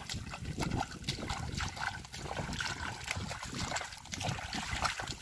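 Bare feet splashing through shallow water and soft mud, step after step, with irregular small splashes and trickles.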